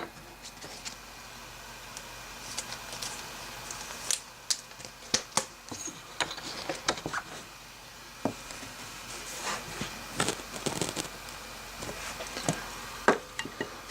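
Trading cards being handled: scattered light clicks, taps and rustles as cards are moved and slid against each other.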